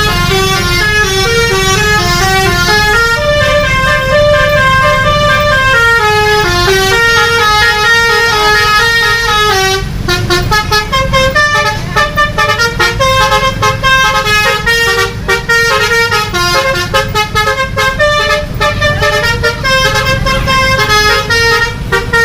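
Bus's basuri telolet horn playing a tune of stepped multi-tone notes. About ten seconds in the notes turn short and choppy. A steady low rumble sits underneath.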